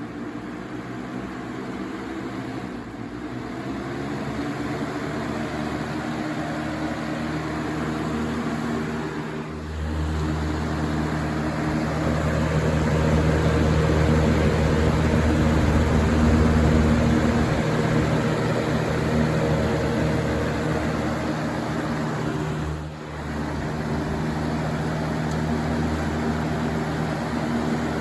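Galaxy 20-inch box fan running: the motor hum and blade whoosh climb in pitch a few seconds in as it speeds up, then run steadily. A heavy low rumble of air joins about a third of the way through, and near the end the hum falls in pitch as the fan winds down.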